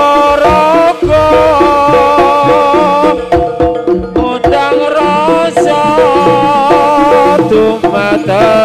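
Javanese jaranan ensemble music played loudly: a wavering, sustained melody line over a quick pattern of hand-drum strokes.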